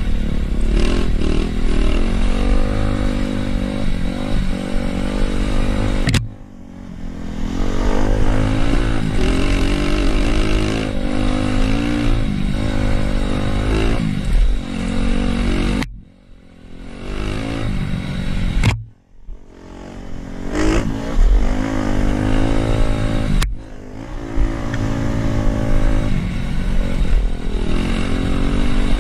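Dirt bike engine heard from the rider's own bike on a trail ride, revving up and easing off. Four times the engine sound drops off suddenly and then builds back up with rising revs, as the throttle is shut and reopened.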